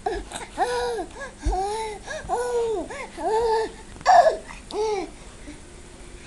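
A baby babbling in a string of about eight short, high calls, each rising and falling in pitch, the loudest just after four seconds in, stopping about five seconds in. There is a soft low bump about one and a half seconds in.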